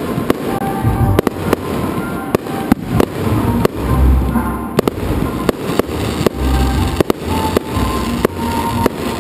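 Fireworks display: a rapid series of sharp bangs from bursting aerial shells, several a second, over deeper rumbling booms from launches and breaks.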